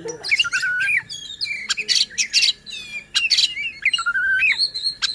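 Oriental magpie-robin (kacer) singing a fast, varied song: clear whistled notes that slide up and down, broken by short harsh rasping notes and a quick run of falling notes about two and a half seconds in.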